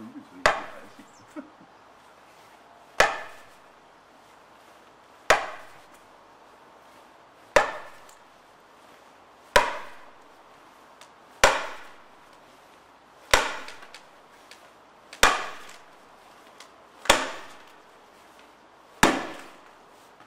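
Wooden mallet striking the back of a blunt axe driven into the end grain of a larch log, splitting the round along a scored line. About ten heavy blows come at a steady pace of roughly one every two seconds, each a sharp crack with a short ringing tail.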